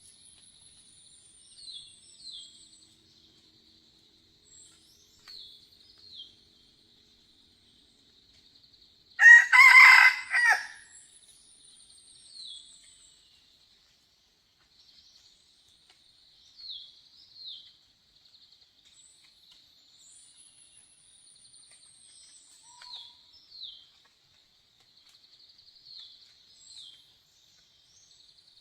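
Red junglefowl rooster crowing once, a short two-part crow about nine seconds in. Behind it runs a faint, steady high buzz broken by short falling chirps, with a few thin falling whistles now and then.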